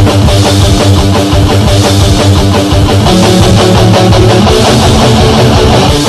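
Loud punk rock backing track made with the Punk-O-Matic online song maker: distorted electric guitar chords strummed over bass and drums, playing without a break.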